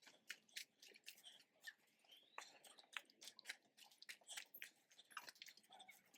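Near silence with faint, irregular crunches and clicks scattered throughout.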